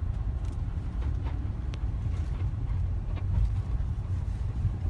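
Steady low road and tyre rumble inside a moving 2006 Hyundai Sonata, with a few faint short squeaks from a newly fitted front strut, a sign that the strut is not good.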